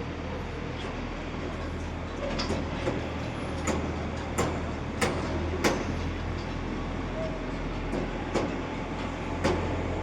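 Sharp knocks at an even pace of about one and a half a second, starting about two seconds in and growing louder, over a steady low hum.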